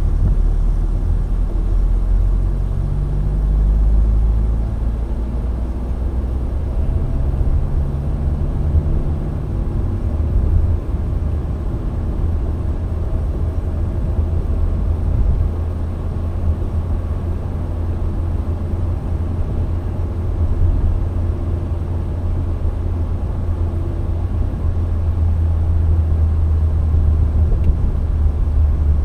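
Steady low rumble of a car being driven, engine and road noise heard from inside the moving car. The engine hum shifts in pitch now and then.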